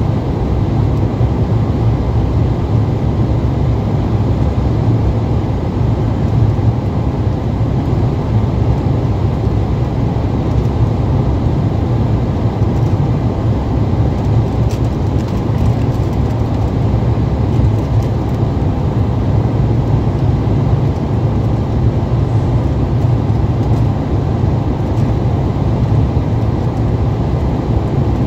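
Cabin noise of an Embraer 170 airliner in flight: a steady, deep drone from its twin turbofan engines and the air rushing past the fuselage.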